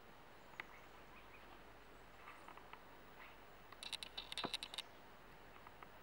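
Hairy woodpecker pecking at tree bark while foraging. There are a few faint taps, then a quick burst of sharp taps about four seconds in.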